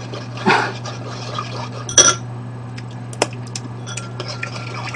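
A spoon clinking against a ceramic bowl while stirring a sauce: a few sharp clinks, the loudest about two seconds in.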